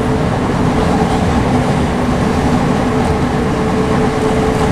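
Class 465 Networker electric multiple unit running at speed, heard from inside the carriage: a steady rumble of wheels on the track with a steady hum running through it.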